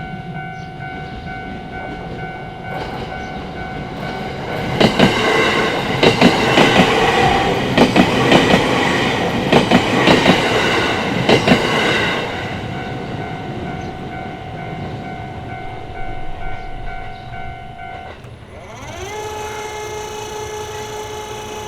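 Japanese railway crossing warning bell ringing steadily while a train passes, its wheels clattering loudly over the rail joints for about seven seconds in the middle. Near the end the bell stops and a different tone rises briefly in pitch and then holds.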